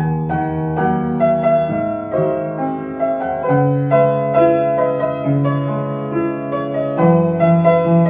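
Background piano music: a gentle melody of sustained notes and chords, several notes a second.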